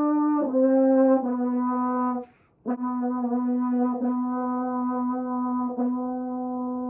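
Holton 281 French horn played after emergency repairs: a few sustained notes stepping down in pitch, a short pause with a breath about two seconds in, then a long low held note, re-tongued twice.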